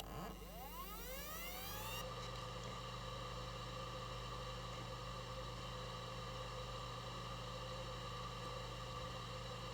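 A faint whir from a small motor that rises in pitch over about two seconds as it spins up, then settles into a steady hum with a few held tones.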